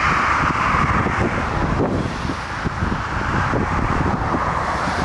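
Airbus A330's twin jet engines running loud on the runway after touchdown, a steady rushing sound, with gusty storm wind rumbling on the microphone.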